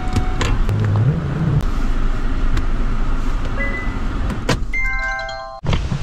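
Car cabin sound while reversing slowly: a steady low engine and tyre rumble with a few light clicks. Near the end there is a brief ringing chime of several steady tones that cuts off suddenly.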